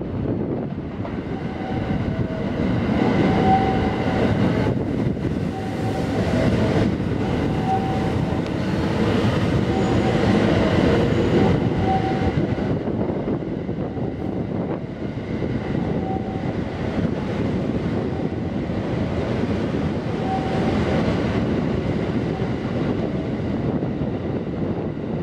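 285 series Sunrise Seto/Izumo sleeper electric train running through the station without stopping: a steady rumble and rattle of wheels on rail, with short high tones recurring every second or two.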